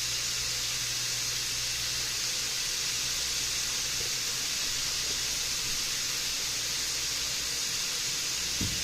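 Ground beef and chopped onions sizzling steadily in a frying pan, with a soft knock near the end.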